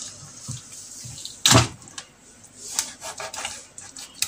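Kitchen knife scraping along a whole raw tilapia on a wooden cutting board: a few short scraping strokes, the loudest and sharpest about a second and a half in.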